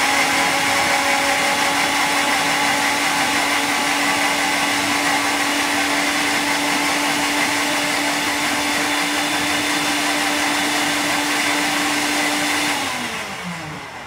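Electric blender running steadily, blending an Oreo milkshake of milk and biscuits. Near the end it is switched off and its motor whine falls in pitch as it winds down.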